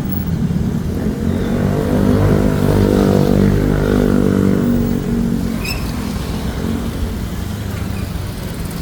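Motor vehicle engine running close by, growing louder through the middle and then fading away.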